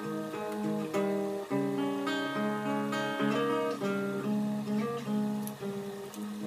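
Background music: acoustic guitar playing and strumming a run of chords.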